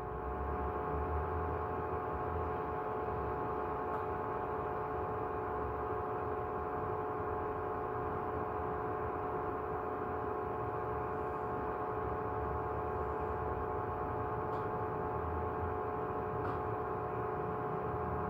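Steady electrical and fan hum from running equipment, with several held tones that do not change, and a few faint clicks.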